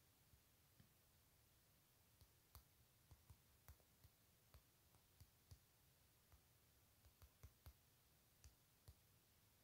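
Faint, irregular taps from typing on a phone's touchscreen keyboard, a couple of taps a second, mostly from about two seconds in.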